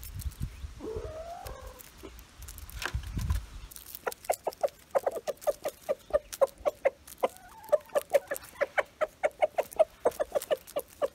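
Chickens feeding on a pile of dead beetles: about a second in, one short bending chicken call; from about four seconds in, a rapid run of short clucks and sharp pecking taps, about four or five a second. A low rumble runs under the first few seconds.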